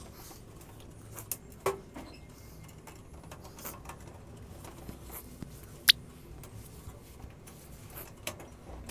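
Scattered light clicks and taps over a low background, with one sharp click about six seconds in.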